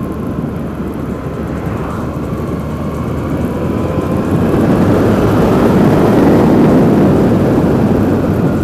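Adventure motorcycle riding at speed: the engine runs under a heavy rush of wind noise, and both grow louder about halfway through.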